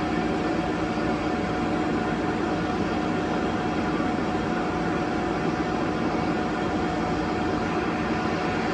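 Sculfort Maxicap Senior parallel lathe running: a steady mechanical whir with a constant whine on top.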